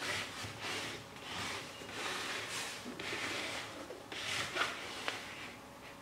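Small plywood machine being slid and shifted by hand on a wooden tabletop: a series of rubbing, scraping swells with a couple of light knocks about four and a half and five seconds in.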